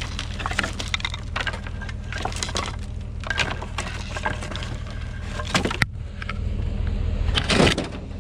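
Discarded junk and scrap being handled and rummaged through: a string of irregular clicks, rattles and knocks, the largest clatter near the end, over a steady low engine hum.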